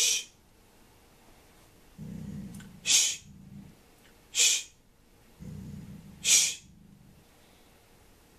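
A golden retriever growling low in short spells, each answered by a short, sharp "tsst" hiss from the trainer, a sound correction meant to stop the growling. The hisses are the loudest sounds: one right at the start, then about three, four and a half and six seconds in, with growls about two and five and a half seconds in.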